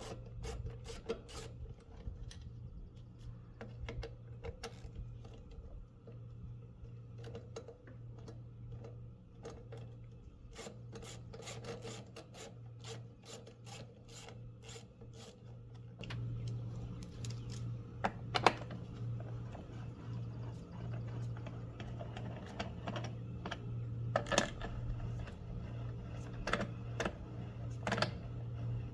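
Socket wrench ratcheting and clicking as screws are backed out of a Lawn-Boy mower's air filter housing and recoil starter, with light clinks of the loosened metal parts and a few sharper knocks. A steady low hum sits underneath and gets a little louder about halfway through.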